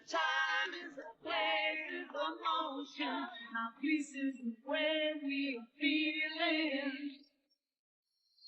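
A voice singing in phrases of held, wavering notes, breaking off about seven seconds in.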